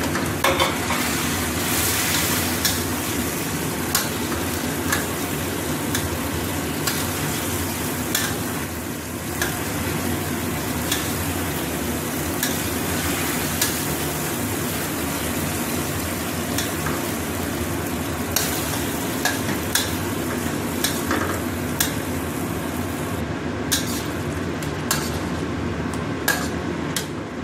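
Metal spatula stirring chicken livers and gizzards in chili sauce in a steel wok, with a steady sizzle and frequent irregular clicks of the spatula against the wok.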